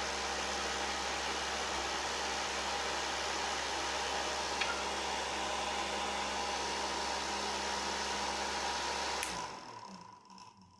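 Repurposed car electric fan running steadily, an even rush of air over a low motor hum. About nine seconds in it is switched off with a click and spins down to silence.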